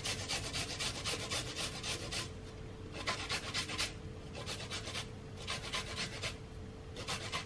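Fresh ginger root grated on a fine hand grater: quick scraping strokes, about five a second, broken by several short pauses.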